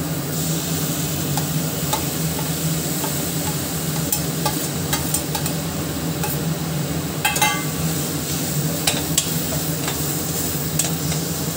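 Slotted steel spatula stirring mashed roasted eggplant into frying tomato-onion masala in a stainless steel pot, with scattered clicks and scrapes of the spatula on the metal and a flurry of them about seven seconds in. A steady low hum runs underneath.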